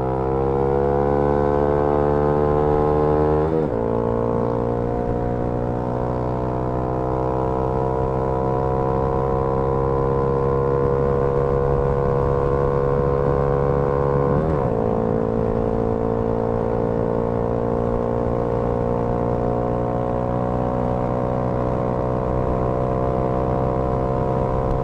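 Honda Grom MSX125's single-cylinder four-stroke engine through an aftermarket Anodizing Racing exhaust, pulling hard under acceleration. Its pitch climbs steadily, drops sharply twice (about three seconds in and again near the middle) as the rider shifts up a gear, then rises again.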